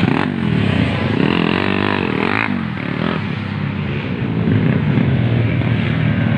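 Dirt bike engines running hard around a race track, one engine's pitch climbing and dropping over the first couple of seconds as it revs.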